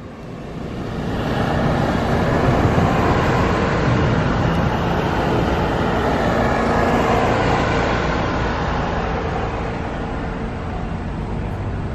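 Car driving on a road: steady engine and tyre noise that builds over the first couple of seconds as it pulls away, then holds steady.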